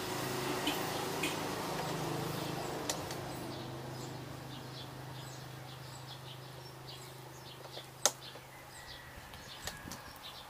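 Birds chirping in short repeated calls over a low steady hum that slowly fades, with a single sharp click about eight seconds in.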